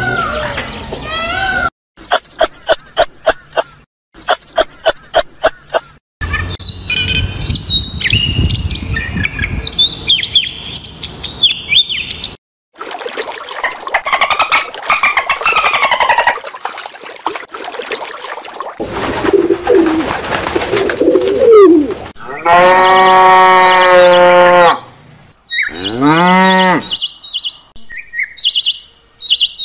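A string of separate animal-call clips cut one after another, mostly bird calls and chirps, with pauses and abrupt changes between them.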